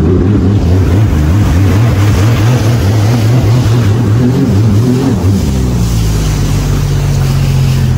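Sea-Doo personal watercraft's engine running under way, with water rushing past the hull. A little past halfway the engine note drops lower and steadies.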